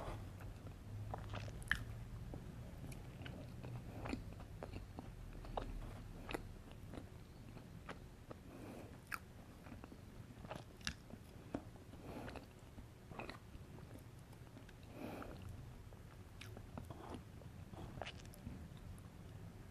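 A person chewing and biting chocolate cake with mocha frosting close to the microphone, with soft irregular mouth clicks and smacks.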